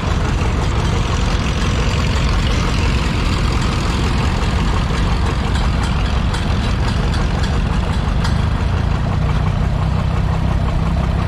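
Minneapolis-Moline tractor's gasoline engine running steadily at low speed, heard from the seat just behind the exhaust stack, with other vintage tractors running close by.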